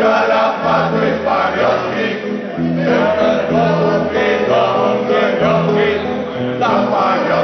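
A group of men singing together, loud and unpolished, over backing music with held bass notes played through a portable amplified speaker.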